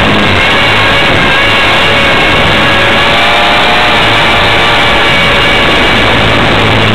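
Align T-Rex 450 Sport electric RC helicopter in flight, heard from a camera on board: a loud, steady motor and gear whine over the rush of rotor wash and wind, the whine's pitch drifting slightly as the helicopter manoeuvres.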